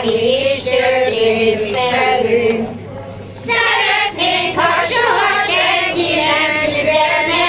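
Women's choir of older village women singing a Hungarian folk song together, in sustained phrases with a short breath break about three seconds in.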